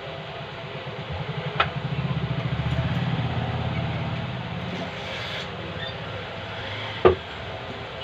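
A motor vehicle's engine passing by: a low, quickly pulsing sound that swells and fades over about four seconds. Two sharp metal knocks, one early and a louder one near the end.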